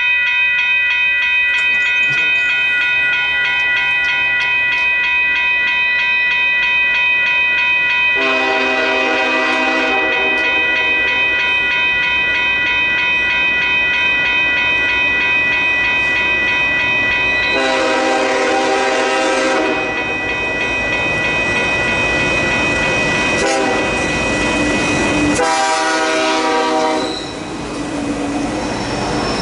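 A freight train led by Union Pacific 1983, an EMD SD70ACe diesel locomotive, sounding its chord air horn: two long blasts, a short one and a final long one, the grade-crossing pattern. Under the horn, a steady high-pitched squeal of wheels on the curving track runs throughout.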